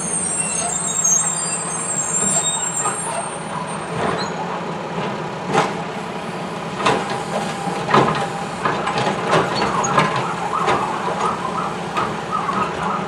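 Mack automated side-loader garbage truck's diesel engine running steadily as it pulls up, with high brake squealing in the first few seconds. Its hydraulic arm then lifts and tips a polybin into the hopper: several sharp knocks and clunks of the bin and falling trash, then a wavering hydraulic whine as the arm brings the bin back down.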